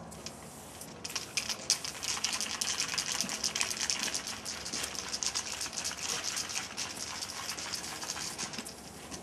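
Aerosol spray paint can hissing as graffiti is sprayed onto a freight car, starting about a second in and going on in quick, uneven spurts until just before the end.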